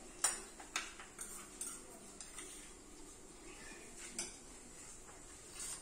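Metal spoon clinking sharply and irregularly against steel vessels, about eight clinks, as sugar is scooped from a small steel bowl and tipped into a steel saucepan.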